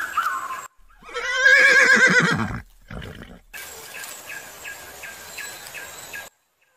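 A horse whinnies once, a loud wavering call that falls in pitch, followed by a short low sound. Around it runs a quieter background of regular high chirps, about three a second.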